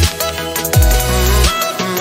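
Background electronic music with a deep bass line that slides down in pitch about three quarters of a second in, under a held synth melody.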